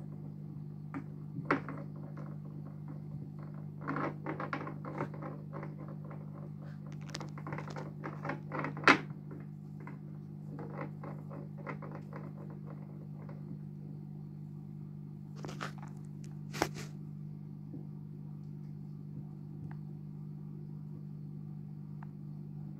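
Yellow-bellied slider knocking its stone against the rocks and glass of its aquarium: scattered clicks and knocks, a dense run of them from about four to nine seconds in with the sharpest knock at the end of it, and a few more near sixteen seconds, over a steady low hum.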